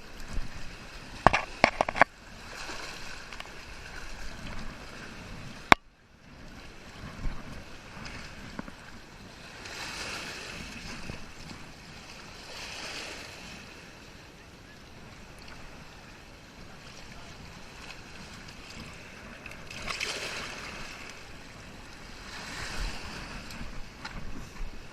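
Water washing and sloshing in surges every few seconds. There is one sharp click about six seconds in.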